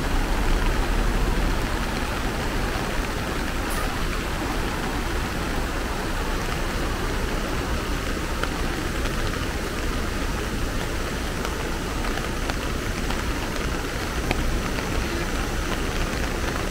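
Steady rushing noise of heavy rain and a swollen, flooding urban stream, with a low rumble in the first second or two.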